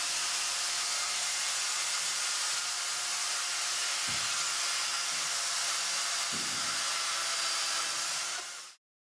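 Corded electric chainsaw running steadily as its chain cuts a groove into expanded polystyrene foam, a continuous hissing motor-and-chain noise with two brief low thumps about four and six seconds in. It stops abruptly near the end.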